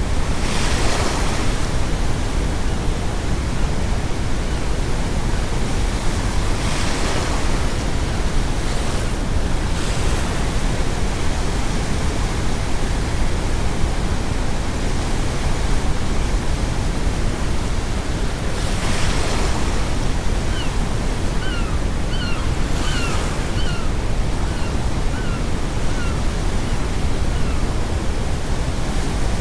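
Ocean waves crashing on the shore every few seconds over a steady, deep brown-noise hiss. About two-thirds of the way through, a gull calls in a run of about ten short, falling cries.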